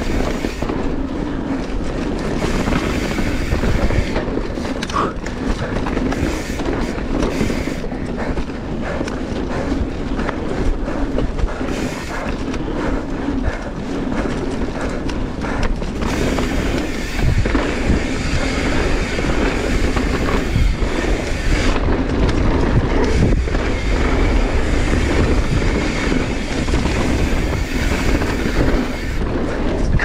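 Mountain bike ridden hard down a dirt trail: constant tyre roar and rattling of the chain and frame over roots and bumps, with wind buffeting the microphone.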